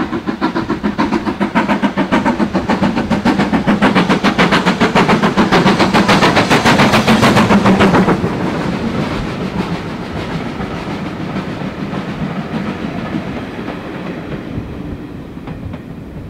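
BR Standard 5MT two-cylinder 4-6-0 steam locomotive No. 73082 working past with a quick, even beat of exhaust that grows louder, then cuts off sharply about halfway through as the engine passes under the bridge. Its Pullman coaches follow with a rumble and clatter of wheels on the rails that fades away.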